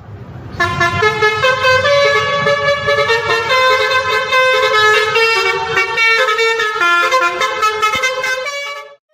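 Indonesian bus 'telolet basuri' musical air horn playing a fast melody of stepped notes, over a low rumble, cutting off abruptly near the end.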